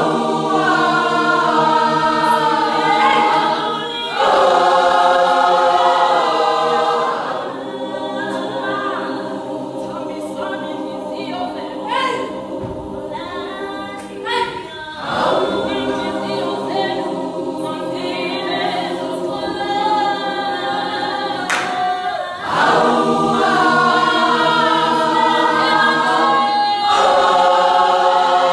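A large women's choir singing a gospel song a cappella in multi-part harmony, holding long chords. The full choir swells louder about four seconds in and again about twenty-two seconds in.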